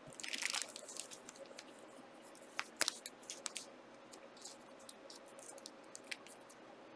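Trading cards and their packaging being handled: a brief faint rustle, then a few light clicks and taps.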